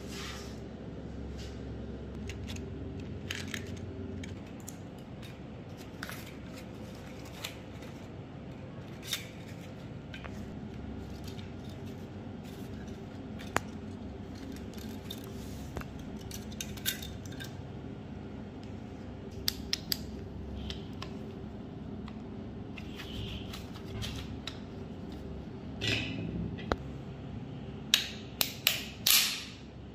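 Light scattered clicks and taps from a rusty pistol frame being handled in gloved hands, over a steady low hum. A quick run of louder clicks comes near the end.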